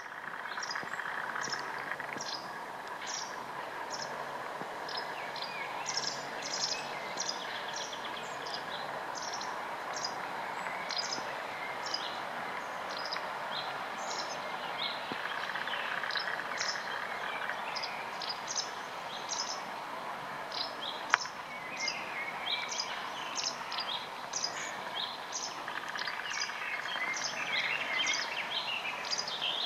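Songbirds chirping and singing in many short, quick calls over a steady background hiss, with one sharp click about two-thirds of the way through.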